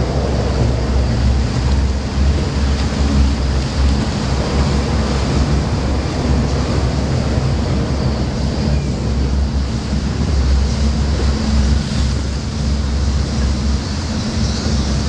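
Powerboat engines running, a steady low drone, with water washing along the hull and wind buffeting the microphone.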